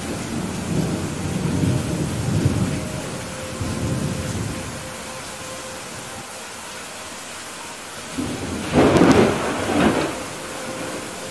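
Heavy rain falling steadily through a thunderstorm. Low rolling thunder rumbles through the first few seconds, then a louder, sharper thunderclap breaks about nine seconds in and dies away within about a second and a half.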